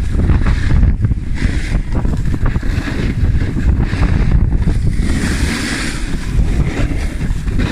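Wind buffeting the phone's microphone as a skier runs downhill, a loud, steady rumble, with skis hissing over the snow, most clearly about five seconds in.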